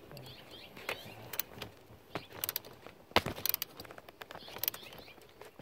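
Ratchet wrench with a 10 mm socket clicking in short irregular bursts while tightening a car battery's terminal clamp nut.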